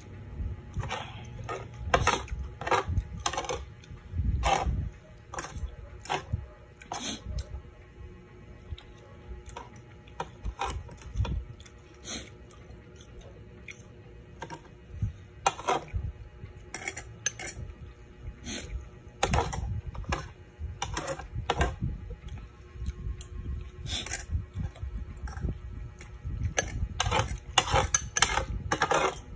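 A metal spoon and fork clinking and scraping against a glass serving bowl of fish soup, in irregular taps and clicks, among close-miked eating sounds.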